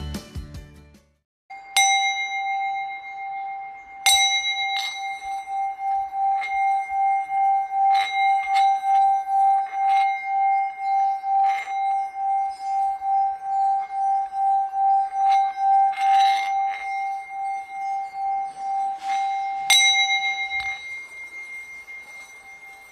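Background music of a singing bowl. It is struck about a second and a half in and again about four seconds in, then rings with one held tone that swells and fades about twice a second, and is struck again near the end.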